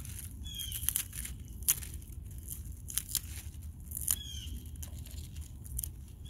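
Spinach stems snapping and leaves rustling as plants are pinched off by hand to thin a crowded container, with several sharp, crisp snaps.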